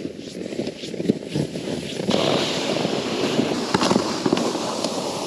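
Boots crunching and scraping over snow on the ice, with many short crackly crunches. About two seconds in, a steady rushing noise joins them.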